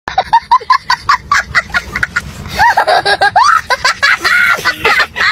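A young boy laughing hard: high-pitched, squealing laughter in quick gasping bursts, rising and falling in pitch.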